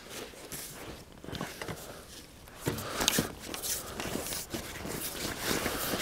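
Light rustling and small knocks from fishing tackle being handled, a pole and landing net, while a fish is played in. The knocks get busier and louder about halfway through.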